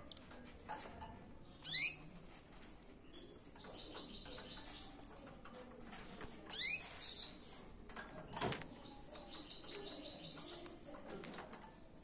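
Small cage finches chirping: three sharp calls that sweep down in pitch and two runs of rapid, high repeated chirps. A single knock a little past eight seconds.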